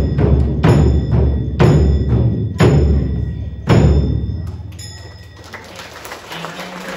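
Drums beaten at about two beats a second, each beat deep and heavy with a bright ringing overtone. The drumming stops with a last beat almost four seconds in, which rings away.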